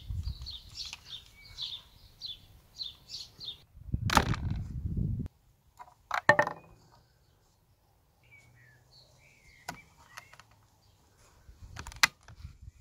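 A songbird chirps in quick repeated notes, then after a cut comes a rustle of handling noise and sharp clicks as a .68 calibre round in a red holder is pushed into the open break-action barrel of a T4E HDS 68 CO2 double-barrel shotgun. A few more clicks follow, with a sharp double click near the end as the action is handled.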